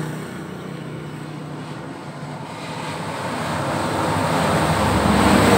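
A passing engine: a steady hum that grows louder from about halfway through and is loudest near the end.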